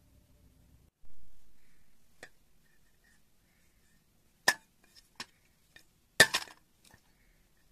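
Sharp metallic clinks of a selfie stick's metal end and loose bolts knocking against a stainless steel bowl: a few single taps, then a quick loud cluster of clinks about six seconds in.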